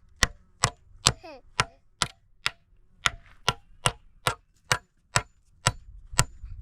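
Steady chopping: sharp, evenly spaced blows, about two a second, each a single hard knock.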